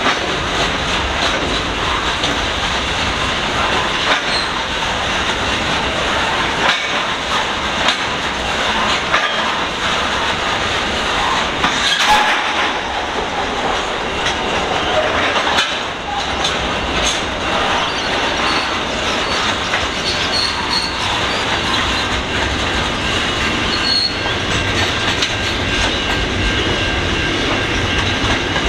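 Long freight train rolling past at steady loudness, its wagon wheels clicking over rail joints, with intermittent high-pitched wheel squeal.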